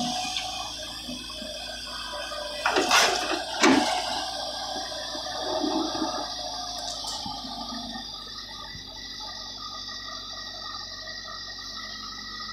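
JCB tracked excavator running, its engine and hydraulics making a steady drone with several held tones while it dumps a bucket of earth into a dump truck and swings back to dig. About three seconds in comes a burst of rushing noise with two loud knocks as the load drops.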